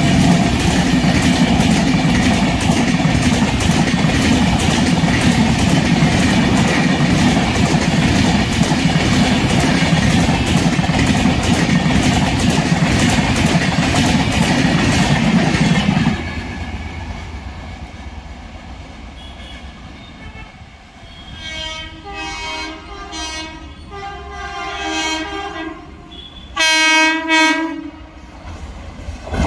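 Passenger coaches passing at speed, a loud steady rumble with a rhythmic clatter of wheels over rail joints. After an abrupt cut about sixteen seconds in, an approaching WAP-4 electric locomotive sounds its horn in several blasts, the loudest near the end.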